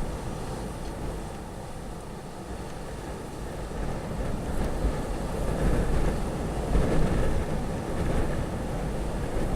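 Windstorm wind gusting and buffeting the microphone with a low rumble, easing a little about two seconds in and building into stronger gusts from about six seconds.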